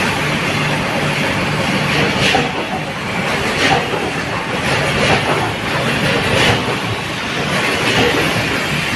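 Cereal packing-line machinery running: a steady mechanical hum with a sharp clack repeating about every one and a half seconds, as in automatic bagging and conveying equipment cycling.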